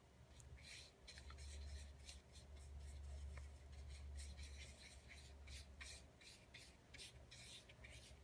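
Small soft brush swirling Perfect Pearls pigment powder over stamped cardstock in circles: faint, repeated scratchy brushing strokes, a few a second, over a low steady hum.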